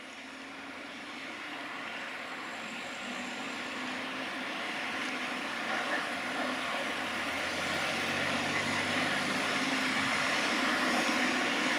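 A train approaching: a steady rushing rumble that grows gradually louder.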